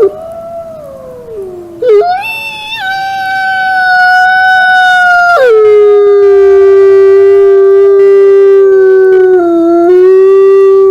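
Wolf howling: a fading, falling howl, then a long howl that rises about two seconds in, holds steady, drops to a lower pitch midway and holds again before cutting off near the end.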